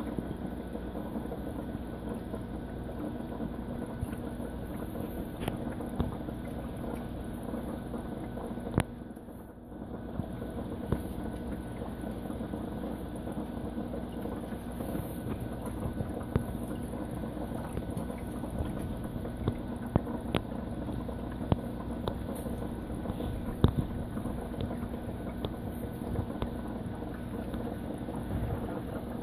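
Steady hum of reef aquarium pumps running, with a few sharp clicks here and there.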